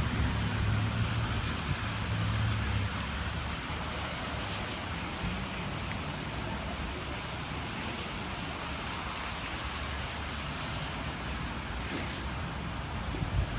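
Steady rain hiss with gusts of wind buffeting the microphone, the low buffeting strongest in the first few seconds and again near the end.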